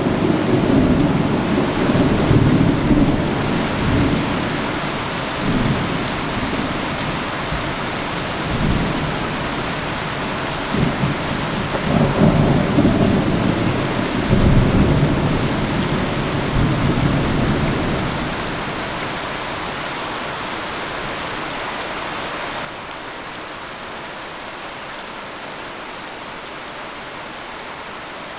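Thunder rolling over steady heavy rain, with long rumbling peals that swell about 2 seconds in and again around 12 and 15 seconds. The thunder dies away at about 18 seconds, leaving only the hiss of the rain, which drops in level near the end.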